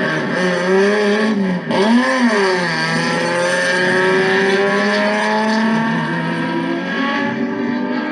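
Turismo Carretera race car engine running hard. About a second and a half in the sound breaks off briefly, the revs swing up and back down, and then the note climbs slowly and steadily.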